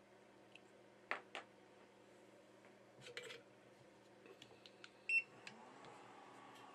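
Faint clicks and ticks of metal tweezers handling a small reballed chip. About five seconds in, a short electronic beep sounds from a hot air rework station. A faint hum follows as its fan starts, rising in pitch and then holding steady.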